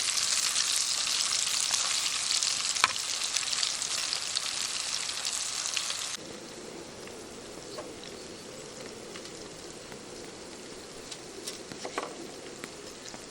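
Karaage frying in oil in a mess tin, a dense sizzle. About six seconds in it stops abruptly, leaving a quieter hiss with a few sharp clicks.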